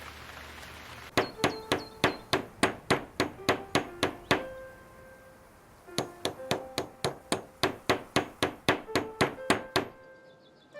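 Hammer driving nails into a leaky roof under repair, in quick strikes of about four to five a second. The strikes come in two runs with a pause of about a second and a half between them, and each strike rings briefly.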